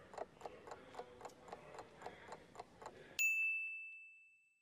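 Countdown timer sound effect: quick, even clock ticking, about five ticks a second, ending about three seconds in with a single bright bell ding that rings out and fades over about a second, signalling that time is up.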